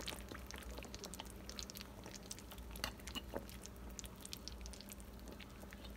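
Faint wet clicks and squelches of a fork prodding and turning pork ribs in thick barbecue sauce in a slow-cooker crock, over a low steady hum.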